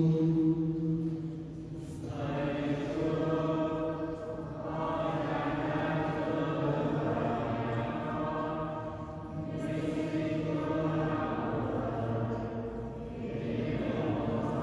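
Voices singing a slow, chant-like liturgical melody in long held phrases, with short breaks between them, ringing in a large church.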